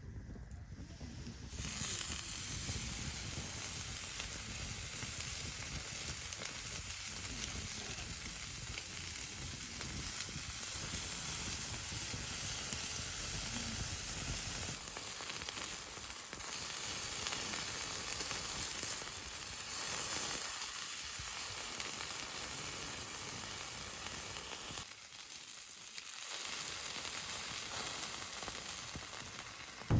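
Food frying in a hot pan, sizzling steadily. It starts about a second and a half in and eases off briefly near the end.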